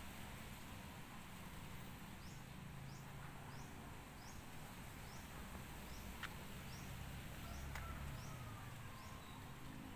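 A high, short chirp repeating evenly, a little under twice a second, from a small calling animal, over a low rumble and a few faint clicks.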